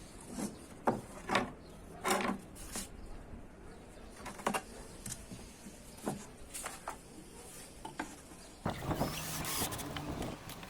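Pieces of wood being handled and worked by hand: scattered light knocks and taps, then about a second and a half of rubbing or scraping near the end.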